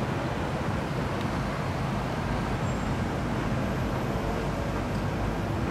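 Steady city street traffic noise: cars driving past, an even wash of engine and tyre sound.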